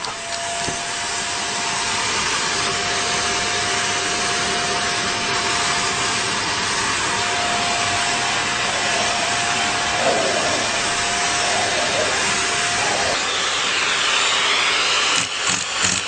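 Vacuum cleaner running steadily: a dense, even rush of air with a steady motor whine over it, which fades out about thirteen seconds in. Near the end the sound turns uneven and choppy.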